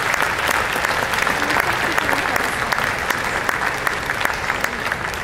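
Audience applauding, a dense patter of many hands clapping that starts to die down near the end.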